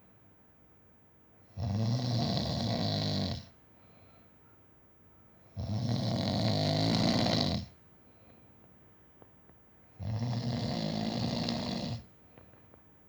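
A man snoring loudly in his sleep: three long, rasping snores, each about two seconds, about four seconds apart.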